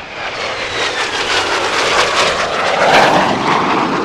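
Jet aircraft flyby sound effect: a rushing engine noise that swells to its loudest about three seconds in, with a whistle that falls in pitch.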